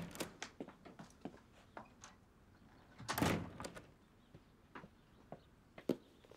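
Quick footsteps on a wooden floor, then a door swinging open about three seconds in, followed by a few scattered light taps.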